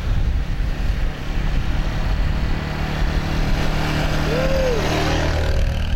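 An engine running steadily under loud rushing noise. About four and a half seconds in there is a short tone that rises and falls.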